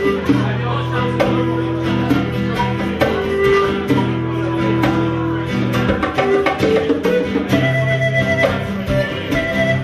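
Live instrumental music: pan pipes playing a melody of held notes over a nylon-string classical guitar, with bongos tapping a steady rhythm.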